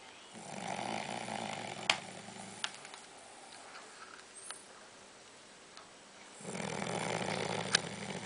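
A man snoring: two long snores, each about two seconds, roughly six seconds apart, each with a sharp click near its end.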